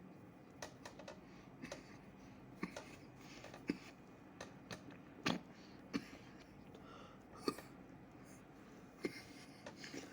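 A cartoon lamb hiccupping: short, sharp hics at irregular intervals, with small clicks between them.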